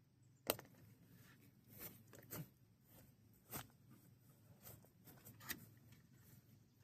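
Near silence with a few faint, scattered clicks and knocks, the sharpest about half a second in.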